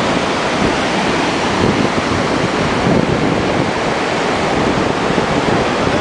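Loud, steady rush of high-flow water pouring out of an outlet into a concrete canal channel and churning along it.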